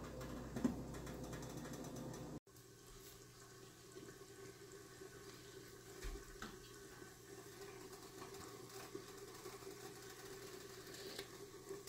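Vegetables and a little water simmering faintly in a covered kadai under a steamed-up glass lid, a low steady sound with a few soft ticks. The background drops abruptly about two and a half seconds in.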